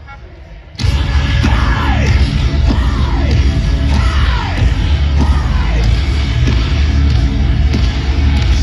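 Live metalcore band playing through a festival PA, heard from within the crowd, with heavy low end. After a brief drop in the first second the full band crashes back in. A run of four falling pitch sweeps follows, about one a second.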